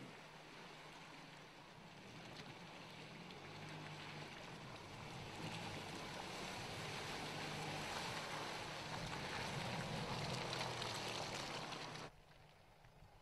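Mercedes-Benz GLK wading through a muddy puddle: a low engine hum under the splash and slosh of water and mud around the tyres, growing louder, then cut off abruptly near the end.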